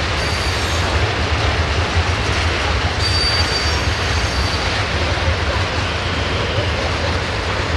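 Tank wagons of a freight train rolling past on the rails, a steady rumble of wheels on track, with a faint high wheel squeal about three seconds in.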